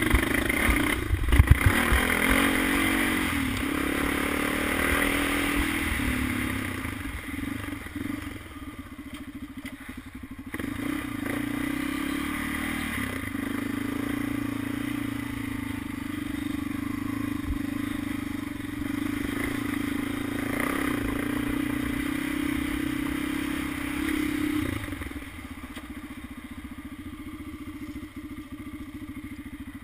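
Sport ATV's single-cylinder four-stroke engine running as the quad is ridden over a trail, with clattering knocks over bumps in the first couple of seconds. The engine holds a steady note, then drops to a lower, quieter note about 25 seconds in as it eases off.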